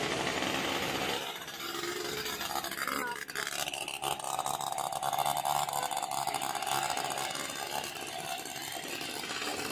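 Steady wash of heavy rain and floodwater, crackling close to the microphone, with a motor vehicle's engine running alongside.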